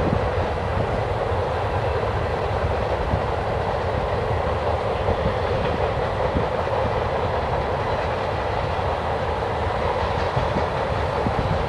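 Freight train cars of boxcars, tank cars and covered hoppers rolling past steadily, with a constant rolling noise and an occasional faint click of wheels over the rails.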